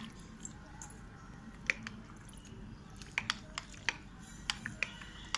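Light irregular clicks and taps of a toddler handling a small plastic sippy cup, sparse at first and then coming a few times a second in the second half.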